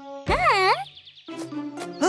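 Light children's cartoon music. Early on a short cartoon voice wavers up and down in pitch, followed by a quick falling sound effect before the music's held notes carry on.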